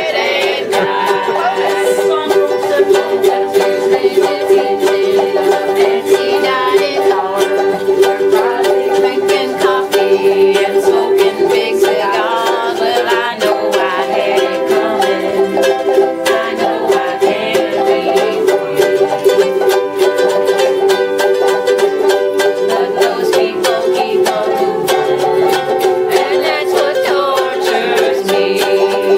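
Ukulele strummed in a steady, even rhythm, playing an instrumental passage of a country tune.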